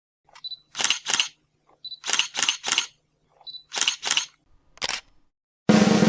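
A run of sharp clicks, mostly in quick pairs and one triplet, three of the groups led by a short high beep. Near the end a loud snare drum roll begins.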